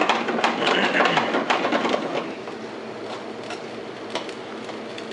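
Sauce sizzling in an aluminium frying pan on a gas burner while a utensil stirs it, clattering and scraping against the pan. The clatter is busiest in the first two seconds, then settles to a steadier sizzle with a few taps.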